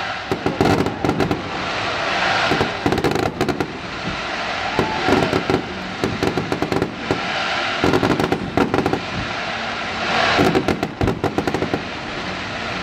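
Aerial fireworks shells bursting, with clusters of rapid crackling pops from crackling-star shells coming every two to three seconds.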